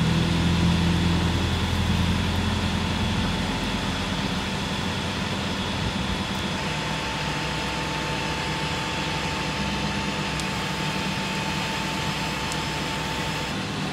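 Heavy truck engine idling steadily, a low hum that is strongest in the first couple of seconds and then eases off a little. A thin, steady higher whine joins it about halfway through.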